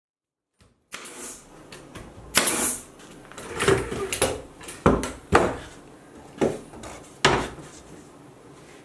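Knocks and clatter of cedar shingles and a long level being set down and shifted on a plywood panel, about seven sharp knocks spread over several seconds, starting about a second in.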